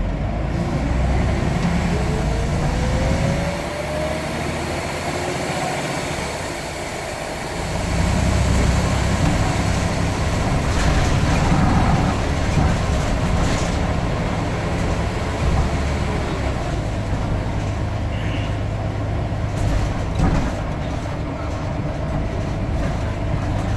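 Scania N94UD double-decker bus engine running under load, with a rising whine in the first few seconds as it gathers speed. It eases off briefly, then pulls harder again about eight seconds in.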